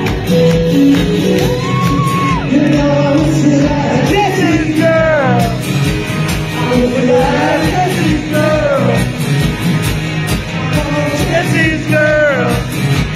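Live rock band playing with a steady beat and held chords, with high, gliding vocal wails over it several times.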